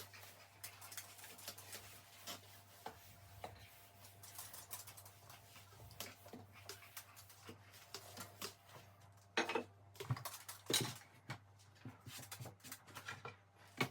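Light clicks and knocks of kitchen items being handled and moved during cleaning, with a few louder clunks about two-thirds of the way in, over a low steady hum.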